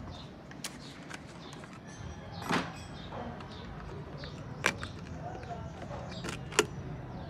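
A new plastic engine-oil jug being opened: its screw cap twisted off and its foil seal picked open, giving a few sharp clicks and scrapes, the loudest about two and a half seconds in, near five seconds and just before the end, over a steady low background hum.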